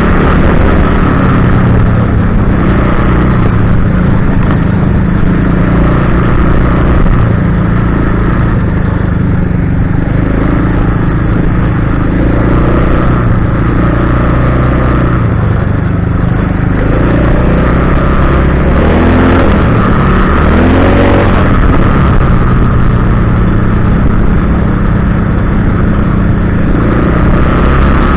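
Kymco Maxxer 300 ATV's single-cylinder four-stroke engine running steadily under way on a dirt track, its pitch rising briefly as it revs about two-thirds of the way through.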